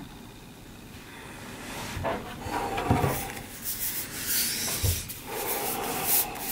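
A 15-inch MacBook Pro slid and turned around on a tabletop: rubbing and scraping starting about two seconds in, with soft knocks about three and five seconds in.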